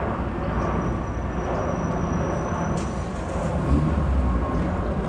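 Jet airliner on approach: a steady low rumble with a rushing hiss over it, and a faint thin high tone from about half a second in to about three seconds.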